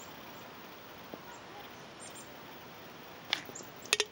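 Faint steady outdoor background, broken by sharp handling clicks on a handheld camera: one click a little past three seconds in and a quick cluster of louder clicks near the end as the camera moves.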